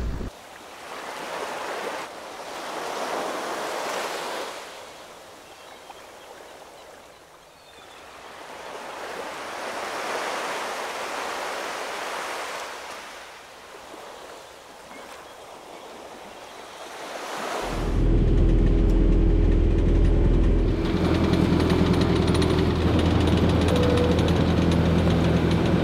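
Sea waves washing and surging in slow swells every few seconds. About two-thirds of the way in, a sailboat's inboard engine takes over, running steadily and louder than the waves.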